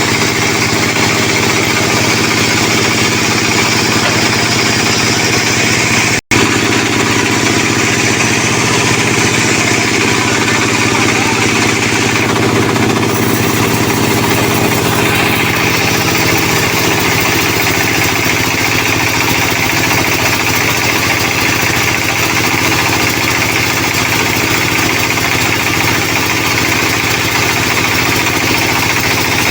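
Sawmill machinery running steadily, an engine hum under a constant whirring noise, with a momentary break in the sound about six seconds in.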